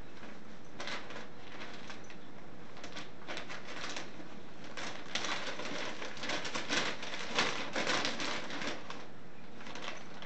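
Newspaper ad circulars crinkling and rustling in irregular bursts as a cat rolls and squirms on them. The crackling grows busier and louder about halfway through and thins out near the end.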